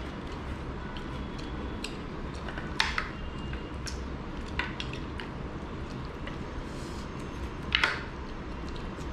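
Hand-eating sounds: chewing and lip smacking, with fingers working rice and curry against plates over a steady low hum. Two sharper clicks stand out, about three seconds in and near the end.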